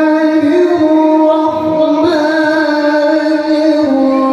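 A male qari reciting the Quran in the melodic tilawah style, holding one long, ornamented note that steps down in pitch near the end.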